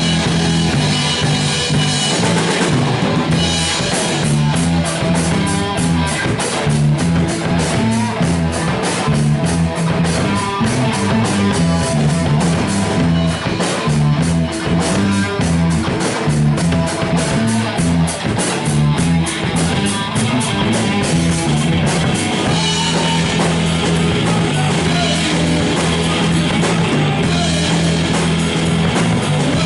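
A live rock band playing: a drum kit and electric guitar over bass. A few seconds in, the drumming turns fast and dense with steady cymbal hits, then eases about three-quarters of the way through.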